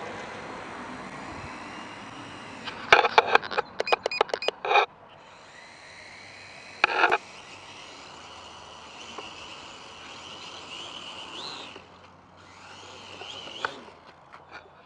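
Kaidang K70C toy quadcopter's small motors and propellers whining in flight, pitch rising and falling with the throttle, cutting out briefly about twelve seconds in and starting again. Several short loud bursts come between about three and five seconds in and once more near seven seconds. The owner suspects a half-dead battery and motors that won't reach full power.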